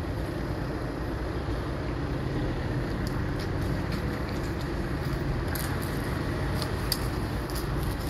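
Steady low rumble of outdoor background noise, like distant traffic, with a scatter of faint ticks and clicks in the second half.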